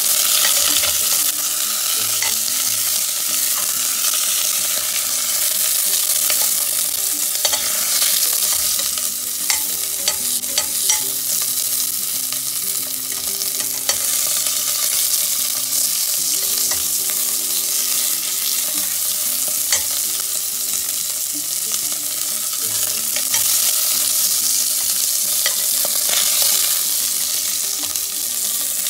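Chicken pieces and chicken fat sizzling steadily in a hot stainless steel pot as the fat renders out, with scattered clicks and scrapes of a metal spoon against the pot.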